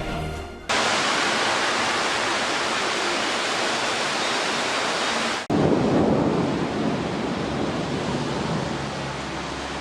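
Heavy downpour: a dense, steady hiss of rain that starts abruptly under a second in as music cuts off. About five and a half seconds in it breaks off for an instant and resumes fuller and deeper.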